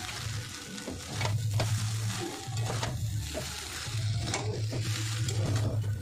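Metal spatula scraping and knocking against a pan while chow mein noodles are stir-fried and tossed, with the noodles sizzling in the oil; a low hum comes and goes underneath.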